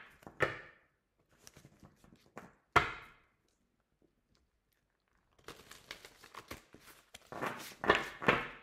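Tarot cards being handled and shuffled by hand: one sharp slap of the deck about three seconds in, then a busy run of shuffling with quick crisp card strokes from a little past the middle, growing louder toward the end.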